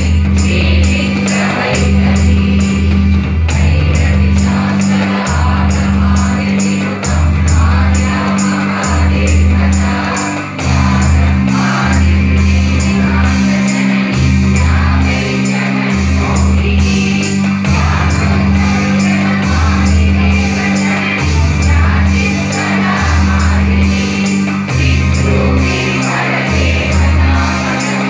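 A group of women singing a devotional song together, one voice led into a microphone, over accompaniment with deep, held bass notes and a steady percussion beat.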